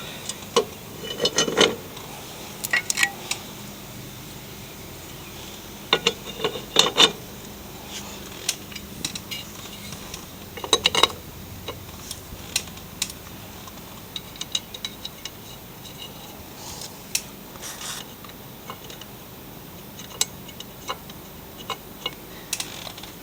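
Metal hand tools and hardware (wrench, nuts, mower blade) clinking and knocking in scattered clusters with pauses between, as a mower blade is refitted to the deck.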